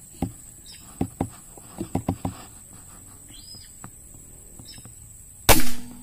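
A single shot from a PCP air rifle, one short sharp crack about five and a half seconds in. Before it, a few soft knocks.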